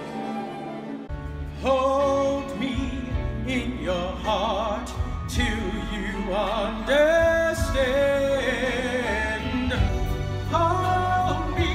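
Music: a solo voice singing long, held notes with wide vibrato over instrumental accompaniment, the bass coming in about a second in.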